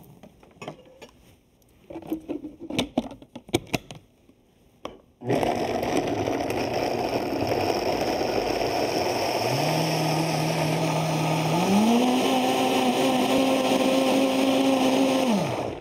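High-powered countertop blender pureeing a thick sauce of crackers, cream cheese and evaporated milk. It switches on abruptly about five seconds in, after a few light clicks and knocks. Its motor whine steps up in pitch twice as the speed is raised, then it winds down and stops near the end.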